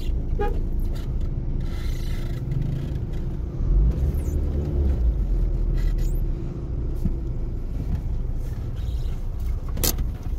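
Steady low rumble of a car on the move, swelling for a couple of seconds midway, with a sharp click near the end.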